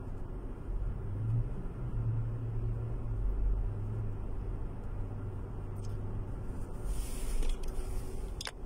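Steady low rumble of a car's engine and tyres heard from inside the cabin while driving. Near the end there is a brief hiss and a sharp click as the phone filming is moved.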